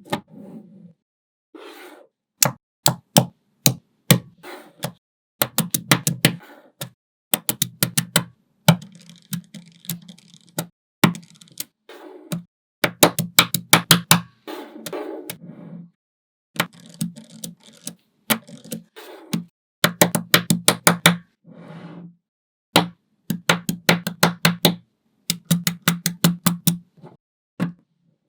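Small magnetic balls snapping together in short runs of sharp clicks, several a second, with a low rattle of the balls being handled between and under the clicks.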